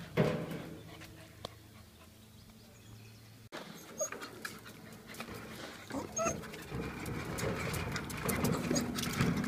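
A dog whining with short yelps as it goes for the turning wheel of a pushed wheelbarrow. A scatter of clicks and knocks builds through the second half.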